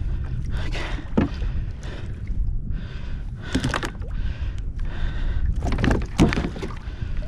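Knocks and water sounds on a fishing kayak over a steady low rumble, while a freshly landed Spanish mackerel is being dispatched. There are several sharp knocks, the loudest about six seconds in.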